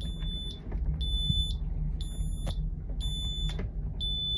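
Depth sounder's shallow-water alarm beeping: a high beep of about half a second, repeating once a second, because the depth reads only about two feet. Under it the boat's engines run slow at low revs.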